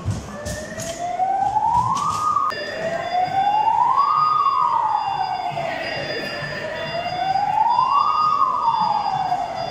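Electronic wail siren of a child-size ride-on fire truck, its pitch rising and falling slowly, one full cycle about every four seconds.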